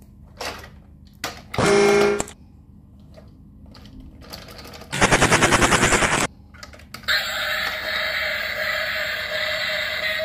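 Battery-operated toy Tayo bus: a few handling clicks and a short electronic sound, then its electric motor and gears give a loud, rapid rattle for about two seconds while the bus is held upside down with its wheels spinning. About seven seconds in, its built-in electronic sound and music start up steadily as it is set back down.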